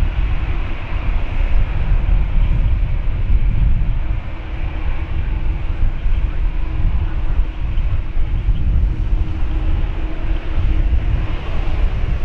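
Wind buffeting the microphone with a heavy, gusting low rumble, over the steady whine of a taxiing Boeing 787-9's jet engines at low thrust.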